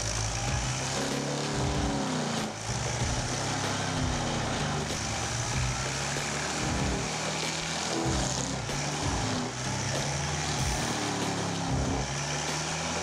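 CMI track-mounted forestry mulcher running steadily, its cutter head shredding a felled log.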